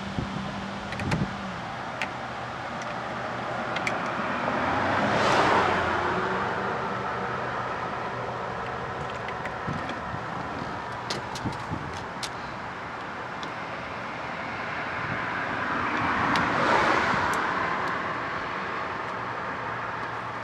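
Two cars passing by, each swelling and fading over a few seconds, the first about five seconds in and the second about seventeen seconds in. A few light clicks and knocks sound in between.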